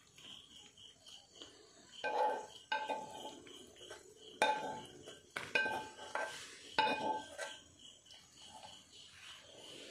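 A metal spoon stirring and tossing dry chicken sukka, clinking sharply about six times with short ringing notes between about two and seven seconds in. A cricket chirps steadily in the background, about three pulses a second.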